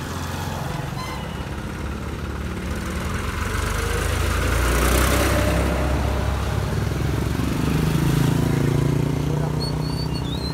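Motorcycle and scooter engines passing close by on the road, the traffic swelling loudest about halfway through and again about eight seconds in.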